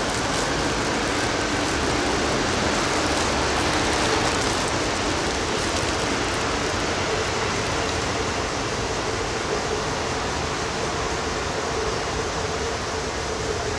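Taiwan Railways EMU800 electric multiple unit pulling away from the station: a steady rushing of the train's running noise that swells a few seconds in and then eases slightly, with a faint steady whine in the second half.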